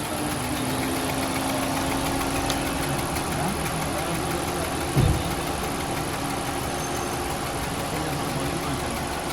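Honda Civic engine running steadily at idle, the engine noise the car was brought in for. A single short thump about five seconds in.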